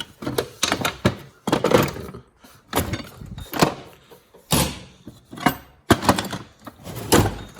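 Metal drawer of an old Craftsman toolbox being shoved and slammed repeatedly as it refuses to close, giving a string of sharp thuds and bangs about once a second.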